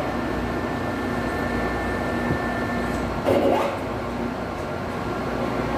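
Metal lathe running steadily, a hum with a thin steady whine, while a pipe is threaded on it. A brief louder noise comes about three seconds in.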